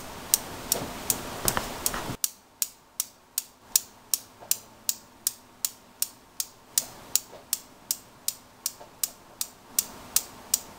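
Newton's cradle: its steel balls clacking against each other in a steady rhythm, about three clicks a second.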